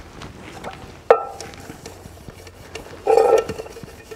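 Steel pots and utensils clanking together as they are handled for scrubbing. A sharp clank about a second in rings on briefly, and a louder ringing clatter comes near the end.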